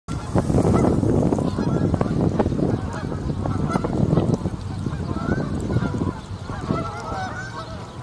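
Canada geese honking: many short calls overlapping and repeating, over loud low background noise.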